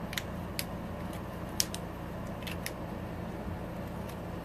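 Light plastic clicks from a freshly 3D-printed fidget cube being worked by hand: half a dozen scattered clicks, the loudest about a second and a half in, over a steady low hum.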